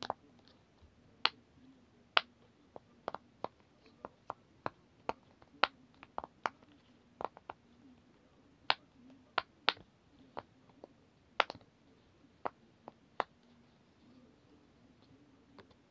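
Silicone pop-it fidget toy being pressed with the fingers, its bubbles giving sharp irregular pops about one to two a second. The popping stops a couple of seconds before the end.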